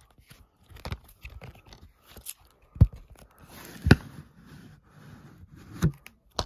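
A plastic DVD case being handled and turned over: scraping and rubbing against the case, with four sharp knocks, the loudest about three and four seconds in.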